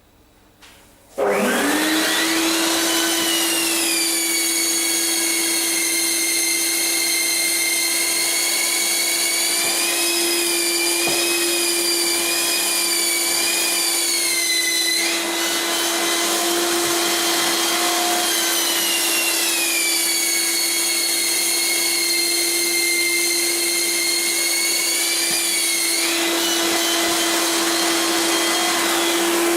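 Electric drywall sander starting up about a second in with a quick rising spin-up, then running steadily. Its high whine wavers and shifts in pitch a few times as it works.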